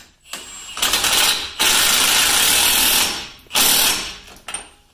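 Power wrench spinning the large axle nut onto the front hub. It runs in a few loud spells, the longest holding steady for about a second and a half.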